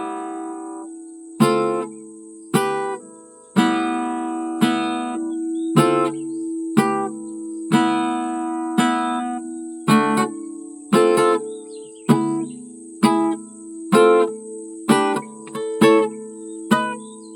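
Acoustic guitar strumming chords, about one strum a second, each chord left to ring and fade before the next.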